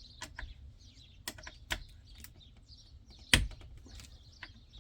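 Scattered light clicks and taps from small steering-wheel trim parts and tools being handled, with one louder knock about three and a half seconds in.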